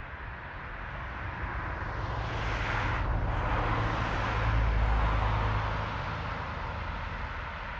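A road vehicle passing nearby with a tyre and engine rush. It swells to its loudest about halfway through, with a deep low rumble at the peak, then fades.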